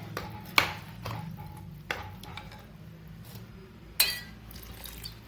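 Spoon stirring vegetables in water inside a pressure cooker pot, with a few metallic clinks and scrapes against the pot, the sharpest about four seconds in, over a faint steady hum.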